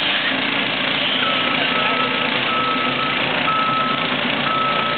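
Heavy machinery running at a demolition site: a Caterpillar excavator's diesel engine over a steady din, with a backup alarm beeping about once a second from about a second in.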